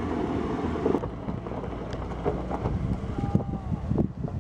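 Pickup truck driving up a steep dirt track, its engine mixed with heavy wind buffeting on the microphone.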